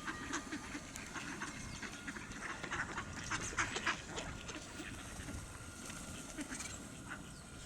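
A flock of mallard ducks quacking in many short, overlapping calls, busiest about halfway through.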